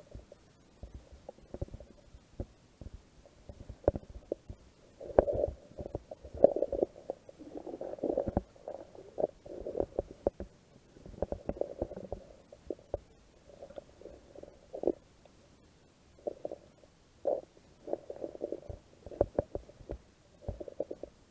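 Kayak paddling: irregular dull, muffled sloshing and splashing of water with occasional sharp knocks, coming in uneven bursts.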